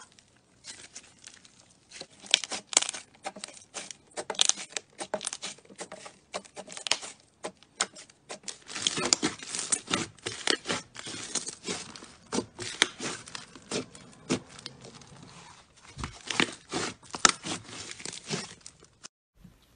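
Slime being squished and pressed, giving a dense, irregular run of crackling, popping clicks that grows louder about halfway through and cuts off near the end.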